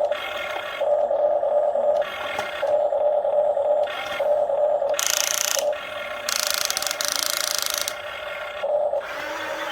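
RC excavator's electric motors whining in short runs of a second or two, starting and stopping as the controls are worked. Two louder rasping, hissing noises come near the middle.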